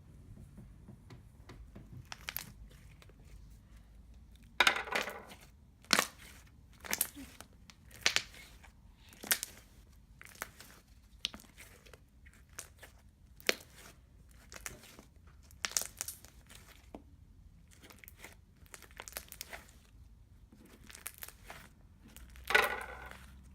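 Fingers poking and pressing slime, making short wet pops and crackles about once a second; the loudest come about five seconds in and near the end.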